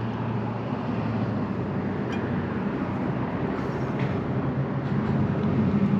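Steady low rumble of passing road traffic, swelling a little toward the end.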